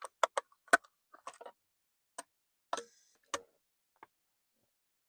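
Irregular sharp clicks and taps of small plastic and metal parts being handled while a motorcycle turn signal is fitted and tightened, the loudest a few clicks under a second in.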